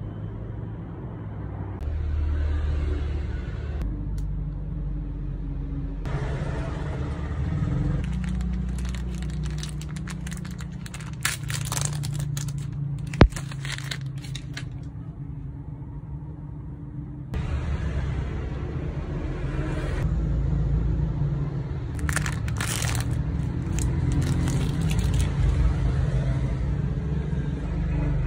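Crinkling and crackling of snack packaging over a steady low rumble, in two spells of crackles, with a single sharp click about thirteen seconds in.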